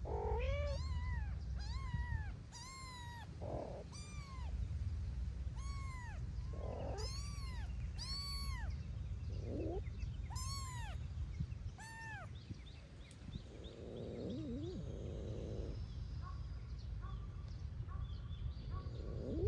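A kitten mewing over and over in short, high-pitched mews, about one or two a second, for the first twelve seconds or so. A few lower, shorter cat calls fall in between, and a lower, wavering call comes a little later. A steady low rumble runs underneath.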